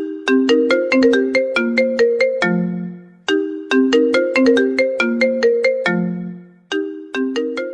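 Mobile phone ringtone: a short melody of quick, fast-fading notes, repeating about every three and a third seconds, each phrase ending on a lower held note.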